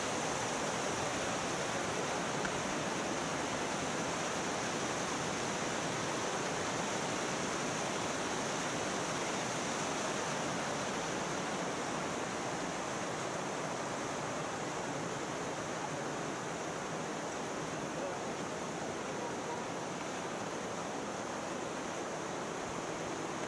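Mountain stream rushing over rocks below a wooden footbridge: a steady, even rush of water that eases slightly near the end.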